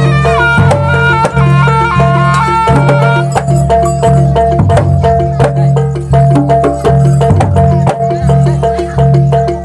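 Jaranan gamelan ensemble playing the dance accompaniment. A sustained melody line with many overtones sounds for the first three seconds, then gives way to a fast repeating metallophone pattern over drums and a steady low gong hum.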